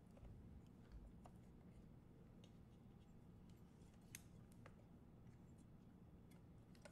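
Near silence, with a few faint clicks and ticks from handling the tape deck's metal parts as a round rubber reel belt is worked off its platter.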